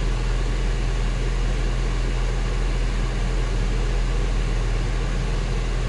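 Steady low hum inside the cabin of an Audi S5 Coupe standing still with its engine idling.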